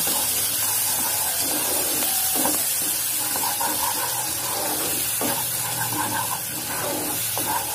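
Mustard and green-chilli paste sizzling steadily as it fries in hot mustard oil in a kadai, stirred round with a spatula: the paste is being cooked down (kosha).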